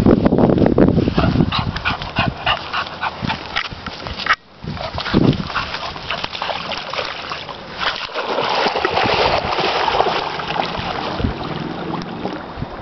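A dog whining and yelping in quick short cries at the water's edge, then water splashing as it wades in and paddles out into the lake in the second half.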